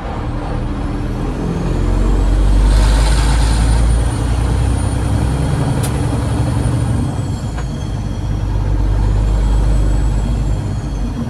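Peterbilt 389's heavy-truck diesel engine pulling hard under a heavy load; the low rumble swells about two seconds in and again near the end, with a faint high whistle rising and falling over it.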